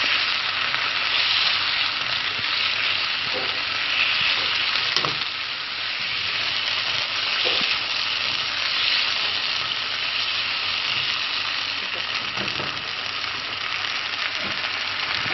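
Mutton liver and chopped tomato sizzling steadily as they fry in oil in a pan, stirred with a spatula that knocks against the pan now and then.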